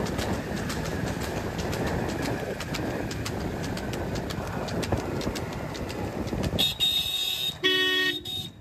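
Steady rolling and rattling noise of moving vehicles with rapid clattering clicks, then a horn near the end: first a high tone, then a short several-toned blast.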